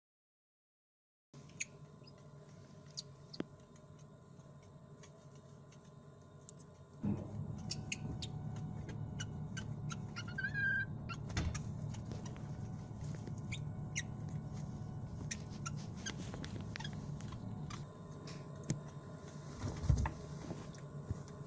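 Steady machine hum in a lab room, with scattered clicks, taps and knocks as baby macaques climb about a plastic incubator. A short high squeak about halfway through.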